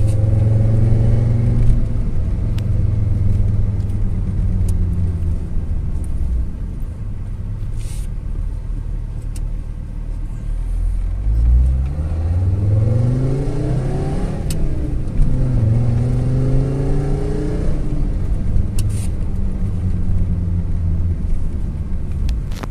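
Fiat Marea's Fivetech inline five-cylinder engine running as the car is driven, a steady drone. About halfway through the revs climb sharply, then fall back and settle.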